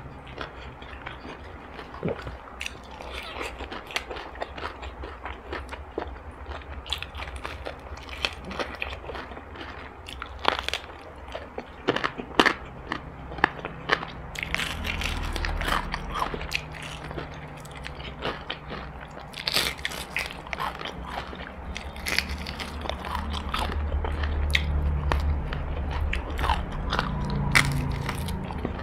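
Close-up crunching and chewing of crispy battered fried chicken, with many sharp, irregular crackles as the crust is bitten and torn.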